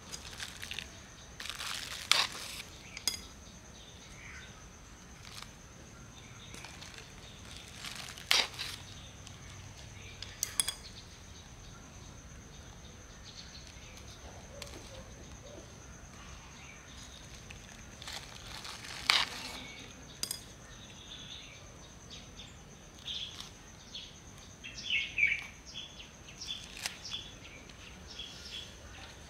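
Plastic bag lining crinkling, with a few sharp crackles, as hands press loose potting soil down into a plastic basket. A faint steady high whine runs underneath, and small birds chirp near the end.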